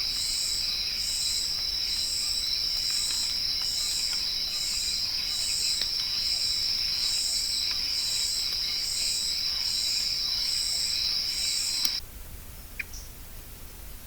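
Insects calling in a steady, high-pitched chorus with a pulsing layer above it, repeating a little under twice a second; it cuts off abruptly about twelve seconds in, and a single short chirp follows.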